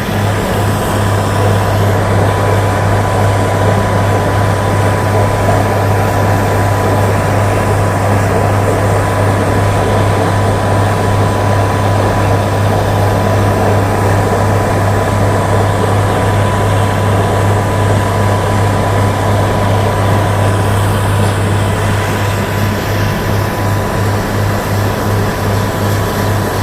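Several bore-well drilling machines running together: a loud, steady machine drone with a strong low hum and a thin steady whine above it.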